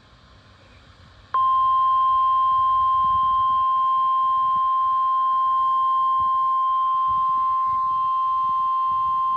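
NOAA Weather Radio 1050 Hz warning alarm tone: after about a second of faint radio hiss, a single steady high-pitched tone starts abruptly and holds unbroken. It is the alert signal that comes before an emergency broadcast, here a severe thunderstorm watch.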